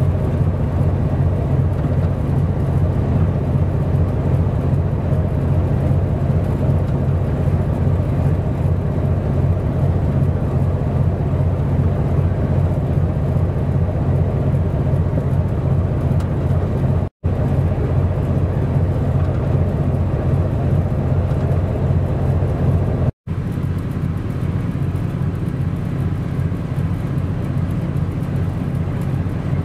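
Steady low engine drone with a deep, even hum, from the cargo ship's diesel engine. The sound drops out for an instant twice.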